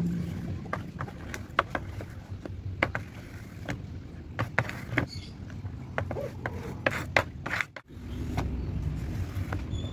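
Irregular scraping and clicking as a scrap-wood spreader drags glue across a thin laminate sheet, and the sheet flexes under the hand. A steady low rumble runs underneath, and the sound cuts out briefly near the end.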